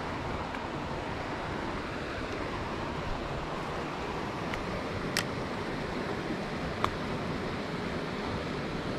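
Steady rushing of creek water, with two faint sharp clicks about five and seven seconds in.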